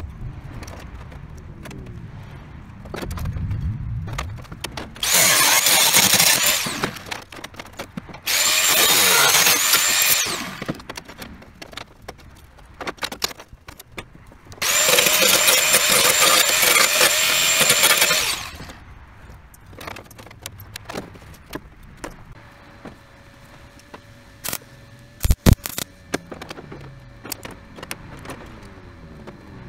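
A power tool cutting sheet steel in three bursts of a few seconds each, each with a steady high whine, with short pauses between; a few sharp knocks follow near the end.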